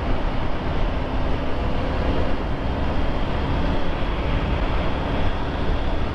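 Triumph Tiger 900 GT's three-cylinder engine running steadily under way, with road and wind noise and a strong low rumble.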